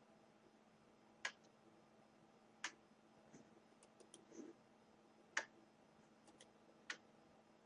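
Near silence with a faint steady hum, broken by four sharp clicks at uneven spacing of one to three seconds and a few fainter ticks.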